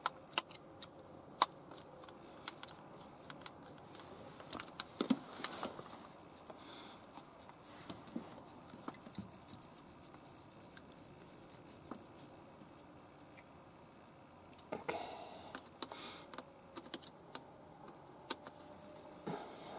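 Irregular small clicks and ticks of a hand screwdriver turning screws into the steel bracket of a power sliding-door motor unit, with the parts handled in the hands. Brief scraping and rubbing about fifteen seconds in and again near the end.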